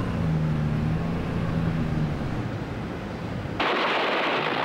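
A battle soundtrack with a steady, engine-like low drone for about the first two seconds. About three and a half seconds in, a sudden, dense, loud noise of gunfire and explosions breaks in and carries on.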